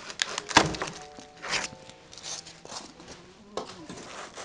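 A series of knocks and thumps of wood as a heavily plastic-wrapped sewing machine is tugged up out of its plywood shipping crate.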